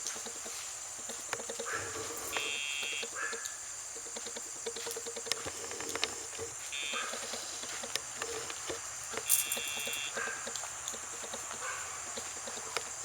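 E-collar sound box buzzing three times, each buzz well under a second: the signal that the dog is feeling the collar's pager vibration.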